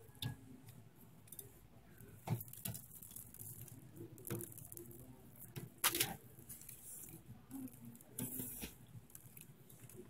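Close-up eating sounds of phở noodle soup: noodles slurped and chewed, with a few sharp clicks at irregular moments.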